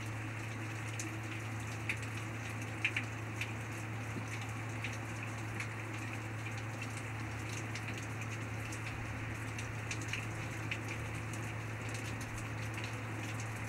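Steady rain, with individual drops ticking sharply close by, a few louder ones about three seconds in, over a constant low hum.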